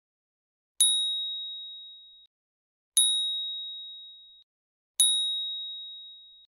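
Three identical single-note dings about two seconds apart, each a bright high chime that starts sharply and rings away over about a second and a half: an added ding sound effect.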